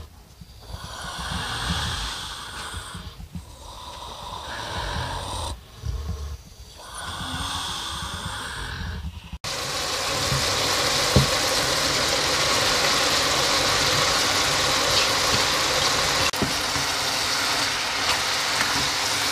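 A sow breathing heavily in her sleep, three long noisy breaths a few seconds apart. About nine seconds in the sound cuts to a steady sizzle of grated carrots frying in a pan, as sliced mushrooms are tipped in and stirred.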